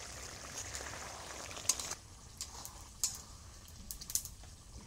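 Chicken curry sizzling in an iron kadai, the hiss dropping away about two seconds in, with a few sharp clicks of a spoon against the pan.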